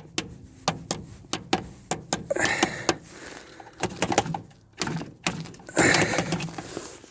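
Irregular sharp clicks and knocks of hands handling metal parts at the backhoe's battery compartment, with two short bouts of rustling.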